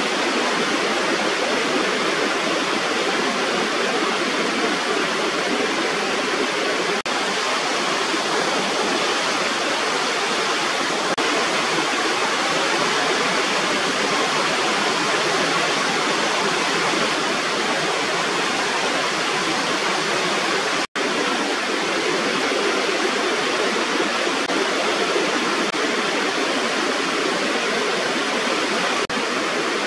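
Water spilling over a rubber weir in a small waterfall, rushing steadily as a dense, even hiss, with a momentary dropout about two-thirds of the way through.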